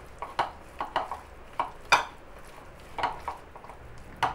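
Hands mixing yogurt-marinated paneer in a ceramic bowl: irregular soft clicks and knocks against the bowl, about ten of them, the sharpest about two seconds in and just before the end.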